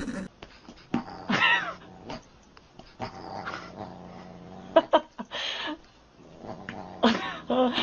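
Pets play-fighting, giving a string of short cries whose pitch bends up and down, about six in all, spaced a second or two apart.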